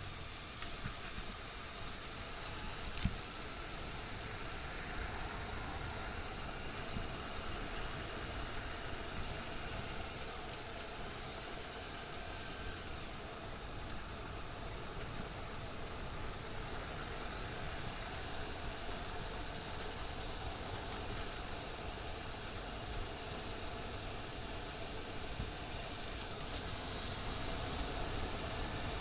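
Motorcycle engine running at a steady cruise under a constant hiss of wind noise, with a single sharp click about three seconds in.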